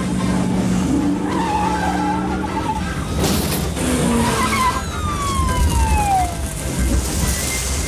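Film car-chase sound effects: cars running and skidding with squealing tyres, and a siren. A long falling squeal comes about five seconds in.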